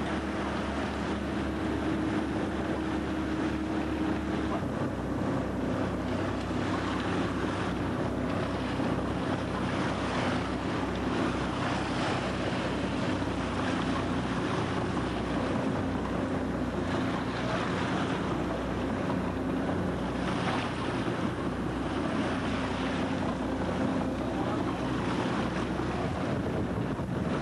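Boat engine running with a steady low hum, under wind buffeting the microphone and the wash of choppy sea water.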